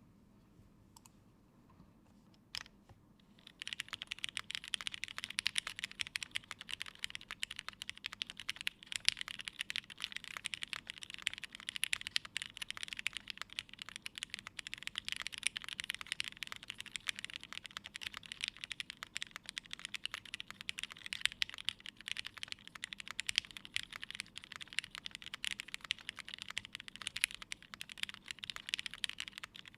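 Mechanical keyboard with lubed and filmed Cherry MX Hyperglide Black linear switches on a half polycarbonate plate, with GMK keycaps, being typed on. A couple of single key clicks come first, then fast, continuous typing from about three and a half seconds in.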